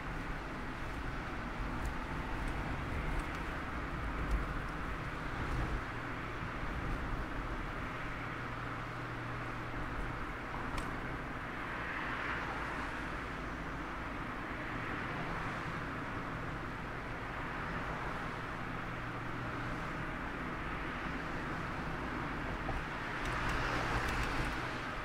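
Mazda ND Roadster driving with the top down: a steady low four-cylinder engine hum under wind and road noise. The noise swells briefly about halfway through and again near the end.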